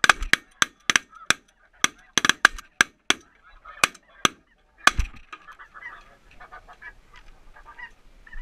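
Snow goose calls: a rapid string of short, sharp, loud calls for about five seconds, then fainter goose chatter.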